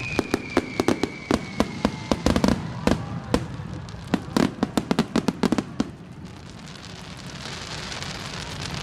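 Fireworks finale: rapid, dense cracks and bangs of bursting shells, with a whistle falling in pitch during the first two seconds. After about six seconds the bursts thin out and a steady hiss builds.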